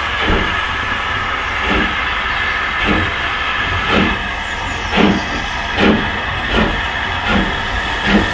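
LMS Black Five 4-6-0 steam locomotive pulling away under load: its exhaust beats get quicker as it gathers speed, over a steady hiss of steam.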